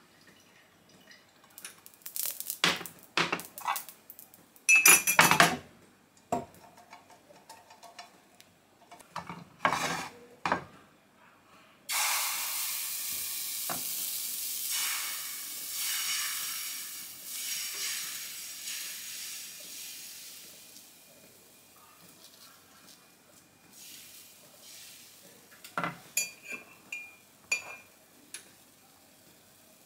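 A few clinks and knocks of a utensil against dishes. About twelve seconds in, malawax (Somali pancake) batter hits the hot oiled frying pan and starts sizzling loudly, the sizzle fading away over several seconds as it spreads and sets.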